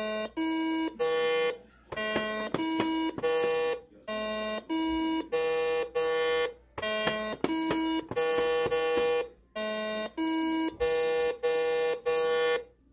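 Basic Fun Simon electronic memory game sounding its tones: short electronic notes, each pad with its own pitch, in runs of several notes with short pauses between them as the game plays a sequence and the buttons are pressed to repeat it.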